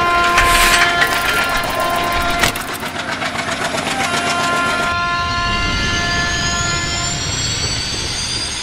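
Soundtrack sound design: a held chord of several horn-like tones over a rumbling rush. Over the last few seconds a set of tones sweeps steadily upward in pitch, then cuts off suddenly.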